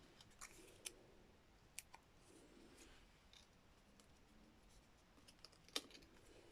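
Near silence broken by a few faint, sharp clicks and light paper-handling sounds as small foam adhesive dimensionals are pressed onto cardstock.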